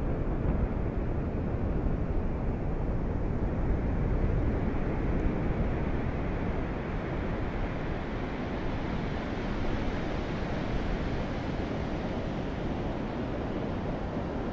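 Wind buffeting the microphone over surf washing on a sandy beach. The low rumble is heaviest in the first half, and after about eight seconds the hiss of the breaking waves comes up.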